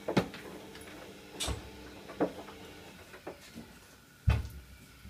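Scattered knocks and clunks of someone climbing up at the counter and handling the kitchen window exhaust fan: about five separate knocks, the loudest about four seconds in.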